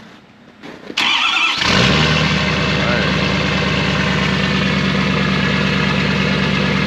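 Ford truck's engine cold-started in about 20-degree weather. The starter cranks about a second in, the engine catches within a second, then settles into a steady idle.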